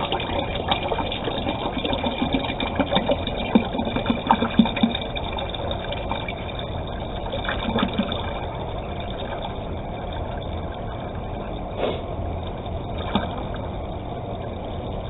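Water splashing and sloshing into a container of thickening homemade liquid laundry soap as it is diluted, with a few knocks in the first seconds and two short knocks near the end.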